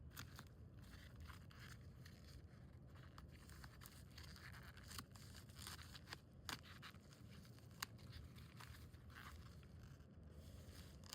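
Faint handling of mail-order coin packaging: soft rustling and scraping with scattered small clicks and ticks as it is opened.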